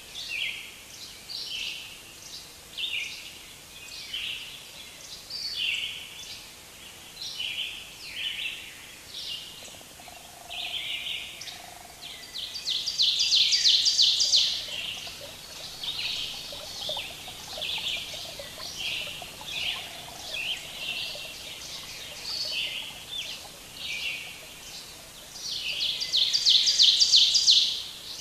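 Songbirds singing, a steady run of short high chirps and calls, with a louder, longer trill about halfway through and another near the end.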